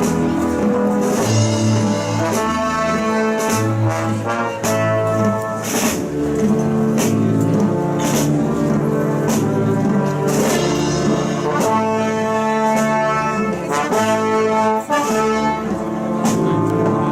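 Brass band playing a Holy Week processional march: trumpets and trombones hold sustained chords over drum and cymbal strikes at a slow, steady beat.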